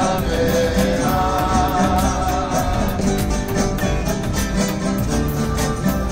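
Live acoustic guitars strummed in a steady rhythm with a sung melody: a small band of guitarists playing a song.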